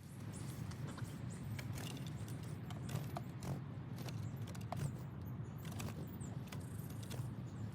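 Japanese varied tit moving about at close range: scattered sharp taps and clicks with a few faint high chirps, over a steady low rumble.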